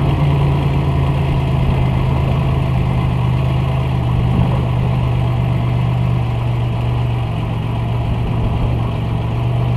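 Buick Regal T-Type's turbocharged, intercooled 3.8-litre V6 idling steadily with the car standing still, a low even hum.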